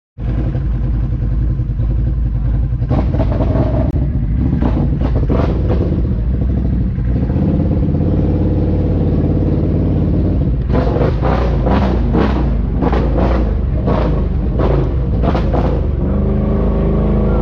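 ATV engines running loud and steady while riding through mud, with runs of rapid, rough bursts of noise about three seconds in and again about eleven seconds in.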